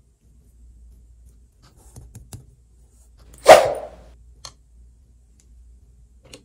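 Faint clicks of hands handling Play-Doh clay lollipops, with one short, loud sound about halfway through as the yellow clay ball comes off its stick.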